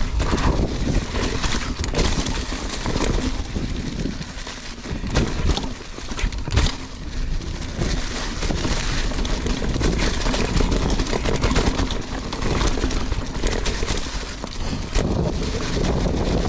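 Mountain bike riding down a rough dirt trail: wind buffeting the camera microphone over the rumble of tyres on dirt, with frequent knocks and rattles as the bike goes over bumps.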